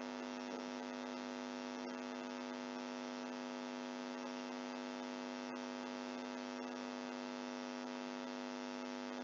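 Steady, buzzy electrical hum with many overtones, unchanging throughout, picked up by the recording setup. A few faint ticks sit beneath it.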